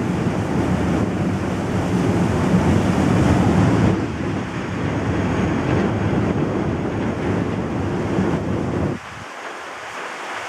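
Ship's wake churning and rushing astern under way, mixed with wind buffeting the microphone. The low rumble drops away about nine seconds in.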